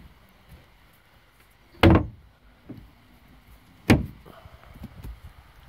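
Spray-lined deck hatch lids on an aluminum bass boat being shut: two sharp thuds about two seconds apart, each ringing briefly.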